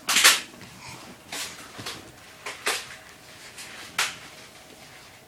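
A handful of short knocks and scuffs with quiet between them, the loudest at the very start: a baby handling and bumping a switched-off vacuum cleaner.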